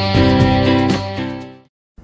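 Intro music with plucked or strummed chords, fading out over the second half and ending in a brief silence.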